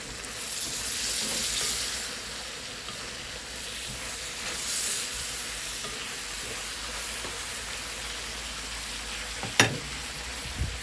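Chicken adobo frying and sizzling in a pan: a steady hiss that swells for the first couple of seconds, with one sharp knock near the end.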